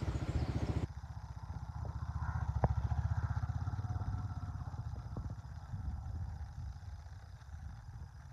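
A small engine running with a steady low pulse, growing louder a couple of seconds in and fading away toward the end.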